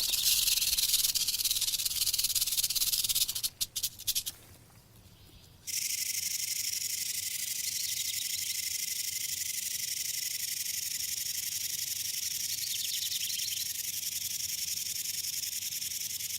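Rattlesnake shaking its rattle: a steady high-pitched buzz that breaks off with a few stutters about 3.5 s in, pauses briefly, and resumes softer about two seconds later, running on steadily.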